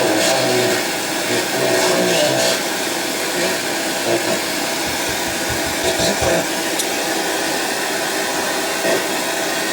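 Steady hissing noise from a Sony EVS7000 Hi-8 video deck's audio output during playback. This is the noise fault being chased, which is traced to a bad capacitor in the deck's audio circuit.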